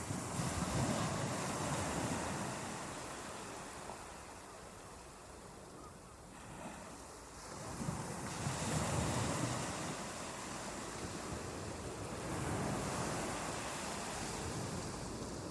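Ocean waves breaking and washing up a beach, the surf swelling and ebbing: a loud surge at the start, a lull about midway, then two more surges.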